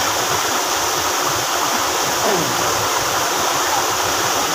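Rocky mountain stream rushing over boulders and through a small waterfall: a loud, steady rush of water.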